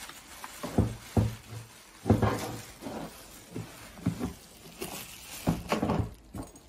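Clear plastic bag crinkling as it is pulled off and crumpled, with a few knocks and thumps from handling a hard plastic carry case.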